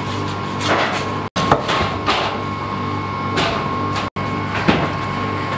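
A handful of irregular sharp knocks, like blows of a tool on wood or a chopping block, over a steady background hum. The sound cuts out completely twice for an instant, a little over a second in and again about four seconds in.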